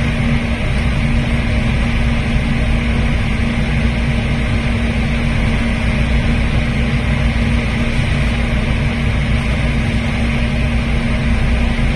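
High-speed passenger boat running at speed, heard from its open deck: a loud, steady drone of engines and rushing air and water, with a constant low hum underneath.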